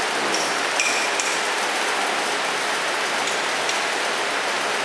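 Nozzle-type vacuum packing machine and its pump running, a steady even hiss, with a few light clicks and faint pings in the first second or so.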